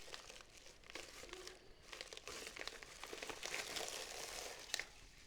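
Packaging being handled for unboxing: wrapping crinkling with many small clicks, busiest in the middle, and one sharper click near the end.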